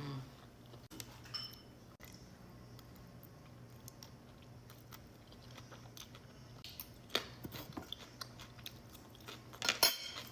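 A person eating, chewing and biting into food, with scattered sharp clicks that bunch up about two-thirds of the way in and again near the end, over a faint steady hum.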